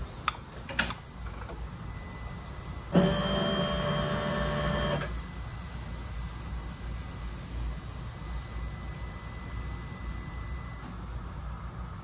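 Two switch clicks on the 2022 Indian Pursuit as the ignition is turned on. About three seconds in, a small electric motor whirs steadily for about two seconds: the fuel pump priming. A faint high electronic whine runs until near the end.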